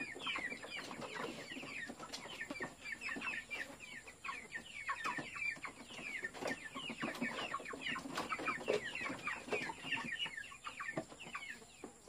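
A flock of month-old white broiler chickens peeping: a steady stream of short, high, falling calls, several a second and overlapping, with a few light knocks among them.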